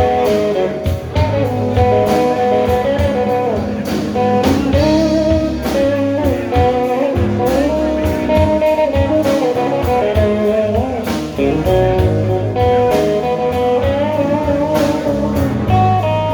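A band playing a slow blues instrumental: lead guitar with bending notes over bass and drums.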